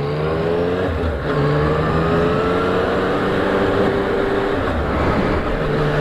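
Yamaha MT-09's three-cylinder engine accelerating away from a stop. The revs rise, dip about a second in as it changes up, rise again and change up once more near five seconds, over a steady rush of wind in the helmet.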